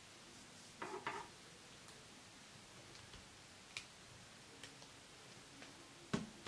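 Small clicks and taps of hands handling rubber loom bands, a plastic sorting tray and a small plastic loom tool: a short cluster of clicks about a second in, a single click near four seconds, and a sharper, louder click near the end.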